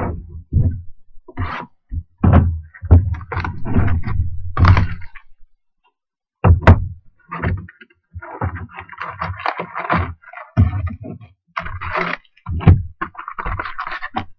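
Cardboard trading-card hobby box handled with a series of thumps and knocks, a short pause, then one sharp click. After that, foil-wrapped card packs are pulled out and rustle and crinkle.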